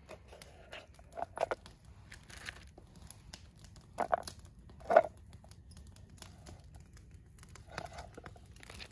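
Fillet knife cutting fish fillets into chunks on a plastic cutting board, with scattered soft taps and the crinkle of plastic being handled; the loudest taps come about four and five seconds in.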